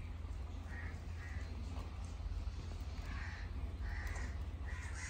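A bird calling repeatedly, about five short harsh calls spaced irregularly, over a low steady rumble.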